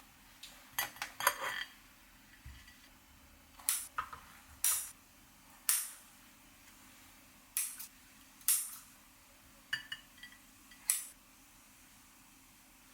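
Dishes and cutlery clinking and clattering as they are handled, about ten short sharp knocks at irregular intervals with a quick cluster near the start.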